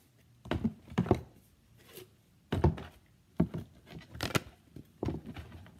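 Small painting canvases being handled and set down into a plastic tub: a series of about six separate knocks and clatters.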